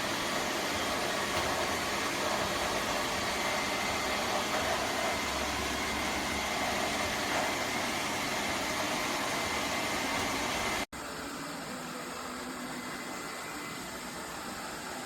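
Lefant M330 Pro robot vacuum running, a steady whirring hiss from its suction fan and brushes with a faint high whine. About eleven seconds in the sound drops out for an instant and comes back quieter.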